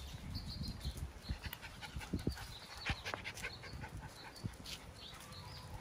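Miniature Schnauzer puppies making short, scattered dog sounds while playing, with a few brief rising whines.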